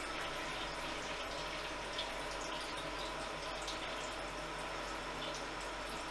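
Coolant trickling and dripping steadily inside a Haas VF-2SS CNC mill's enclosure, over a steady machine hum.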